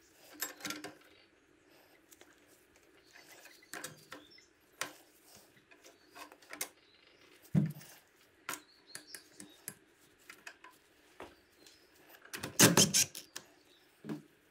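Scattered light metallic clicks and clinks of wrenches and a long bar working against the rocker arms and springs of a BMW N52 cylinder head, as a spring is levered toward its seating tabs. A single dull knock comes about halfway, and a louder burst of clattering near the end.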